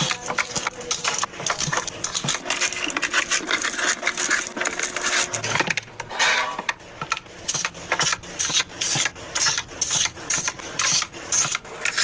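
Rapid clicks, knocks and rustling of items being handled and set into a fridge.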